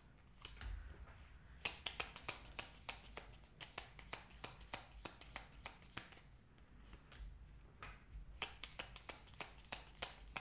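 A deck of tarot cards being shuffled by hand: a faint run of light card clicks and flicks, several a second, coming thicker near the end.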